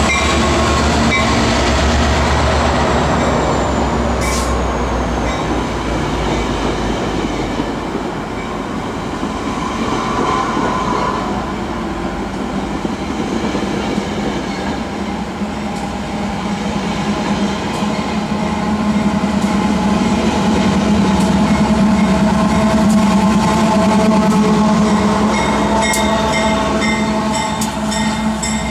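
Metrolink train passing close: the EMD F59PH locomotive runs by, then the bilevel passenger coaches roll past with steady wheel and rail noise and a low hum. Near the end a BNSF GE AC44CW locomotive approaches, with regular clicks of wheels over the rail joints.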